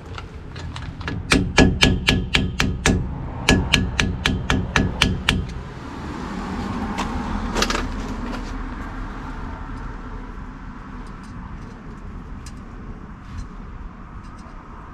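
Quick metal-on-metal hammer taps, about five a second in two runs, while fitting the rear hub's spindle nut and keeper key on a dually axle; after them a steady low rumble with a few faint ticks.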